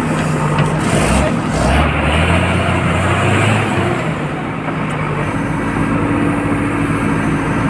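Diesel engines of a JCB backhoe loader and a Tata LPT 2518 ten-wheeler truck running hard together as the backhoe pushes the truck stuck in wet soil. The engine note rises and shifts in the first few seconds, then settles to a steady drone.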